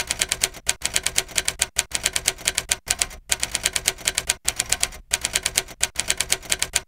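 Typewriter keys clacking in a quick, uneven run, several strikes a second with a short pause every second or so. It is a typing sound effect laid under on-screen text being typed out letter by letter.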